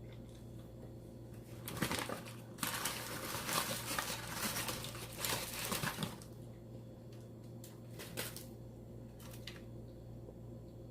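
Crackling and crinkling from a crispy fried-chicken takeout meal being handled and bitten close to the microphone. A short burst comes about two seconds in, then about four seconds of dense crackle, then a few short clicks.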